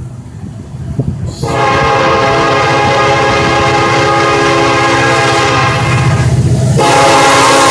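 Air horn of Norfolk Southern SD70M-2 locomotive No. 2737, a loud multi-note chord sounded for a grade crossing. It starts about a second and a half in, holds as one long blast, breaks off briefly near the end and sounds again. The locomotives' diesel engines rumble underneath.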